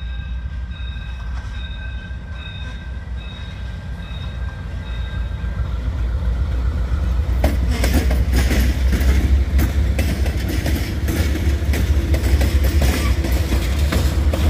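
Diesel freight locomotives approaching and passing close by. A low engine rumble grows steadily louder, and from about halfway through it is joined by a rapid clanking and clatter of wheels and running gear as the lead units go past.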